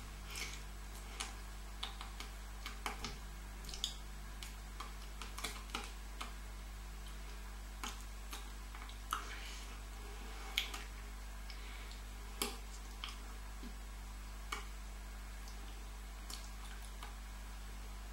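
Scattered soft clicks and taps at irregular intervals from hands touching each other and brushing clothing while signing, over a steady low hum.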